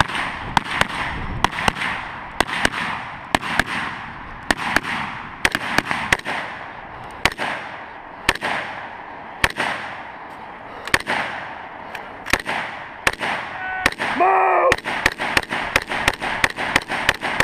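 AR-15-style rifle shots fired in a long, irregular string, often in quick pairs, each with a short echo.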